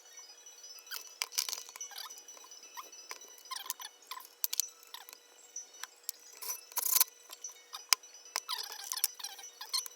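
Irregular light clicks, clinks and short scrapes of small hard parts being handled, with the sharpest click about seven seconds in.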